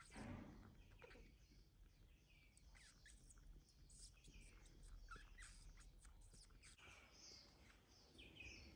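Near silence, with faint, scattered short high chirps and small clicks.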